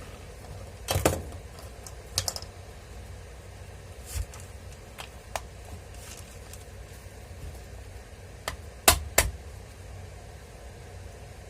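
Scattered sharp clicks and knocks of tools and grinder parts being handled, about seven in all, the loudest two close together near the end, over a faint low hum.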